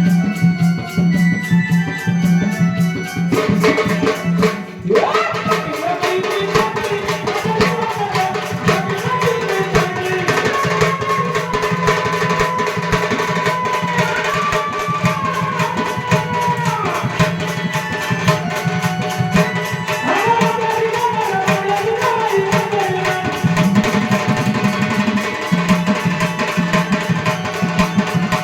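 Indian devotional music: tabla playing a steady rhythm under a held low drone, with a wavering melody line entering about five seconds in.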